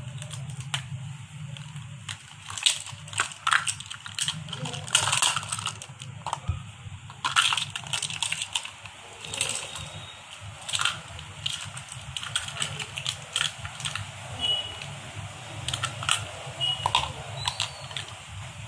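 Black plastic measuring cups and spoons clacking against each other and the table as they are picked up and nested, many sharp irregular clicks and knocks, over a steady low hum.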